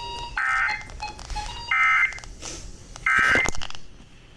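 Three short bursts of NOAA Weather Radio SAME digital data tones, a harsh two-tone warble, each under half a second and about a second and a half apart. Bursts this short are the end-of-message (NNNN) code that closes an alert.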